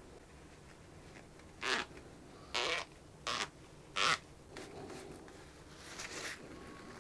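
Damp sponge rubbed along a violin bow's stick and new leather grip in four short scratchy strokes, wiping away excess white glue. This is followed by softer rustling as the grip is dried with a tissue.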